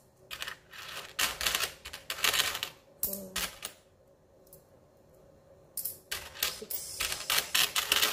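Metal dirham coins clinking against each other as they are picked up and set onto stacks by hand, in quick runs of clicks. The clinking stops for about two seconds near the middle, then starts again.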